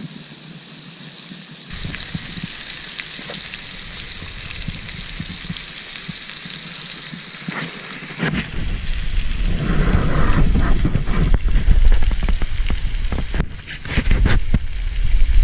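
Chops sizzling on a campfire BBQ: a steady hiss with scattered crackles. About eight seconds in, a heavy low rumble joins and grows louder.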